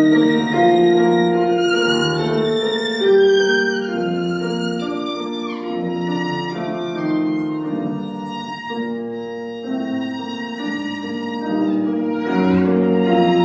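Violin playing a melody of held notes with vibrato.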